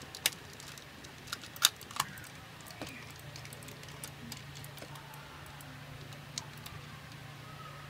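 Computer mouse button clicking: a few sharp, separate clicks at an uneven pace, the loudest in the first two seconds, over a steady low hum.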